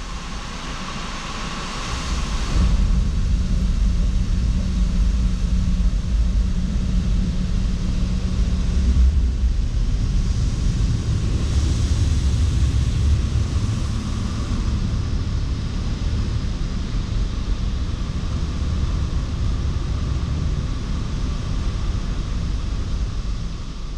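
Automatic car wash running, heard from inside the car: a steady low rumble of machinery, with hissing swells of water spray in the first couple of seconds and again about twelve seconds in.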